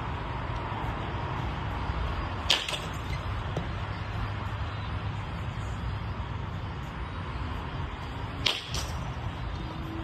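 Two pitched baseballs landing with a sharp smack, about six seconds apart, each followed a moment later by a second, softer hit. A steady low rumble runs underneath.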